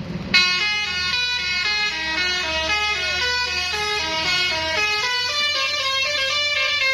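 Bus telolet horn, a multi-tone musical air horn, playing a melody: a loud first blast just after the start, then a quick run of notes changing pitch several times a second. A bus engine rumbles low underneath.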